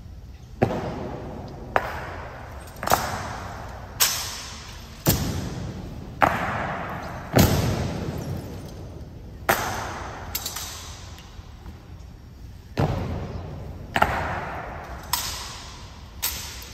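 Honor guard drill: sharp stamps of boots and rifle butts, about one a second, each followed by a long echo, with a short pause partway through.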